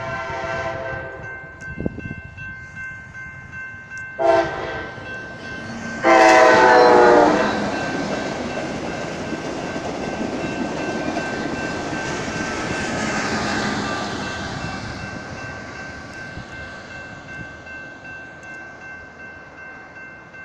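Amtrak Cascades Talgo train led by a Siemens SC-44 Charger locomotive sounding its horn for a grade crossing: a long blast ending about a second in, a short blast about four seconds in, and a long, loudest blast about six seconds in. Then the train rumbles past on the rails, fading away.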